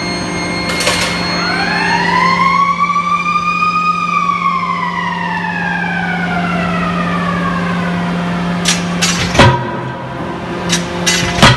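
CNC hydraulic die forging hammer over a steady machine hum. A whine rises for a few seconds and then slowly falls away. Near the end the hammer strikes the hot workpiece twice, about two seconds apart, each heavy blow preceded by a couple of lighter clicks.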